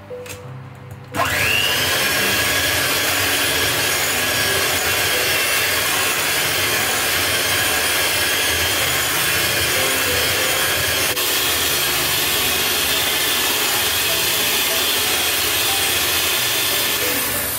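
Russell Hobbs electric hand mixer switching on about a second in with a rising whine, then running at a steady loud whirr as its beaters whisk egg yolks and sugar in a glass bowl, and switching off near the end.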